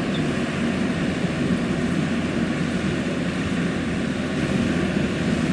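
Takeuchi TL250 tracked skid steer's diesel engine running steadily.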